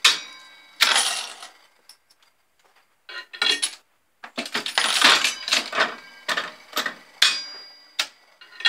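Mechanical one-armed bandit slot machine being played: sharp metallic clanks and clicks from the lever mechanism and spinning reels. A loud clank comes right at the start, then a short burst about a second in and another around three and a half seconds, then a longer clatter from about four and a half to seven and a half seconds, and a few final clicks near the end.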